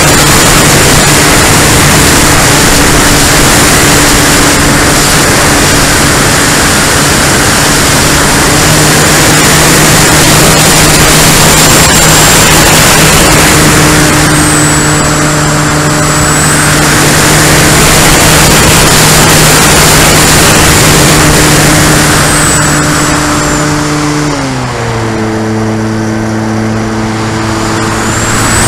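Onboard sound of a Great Planes Revolver RC airplane in flight: loud wind rush over the camera with the propeller and motor droning at a steady pitch. About 24 seconds in, the drone steps down to a lower pitch as the motor slows.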